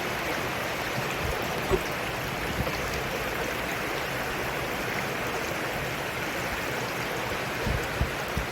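Mountain stream water rushing steadily over rocks, with a couple of brief low bumps, one about two seconds in and another near the end.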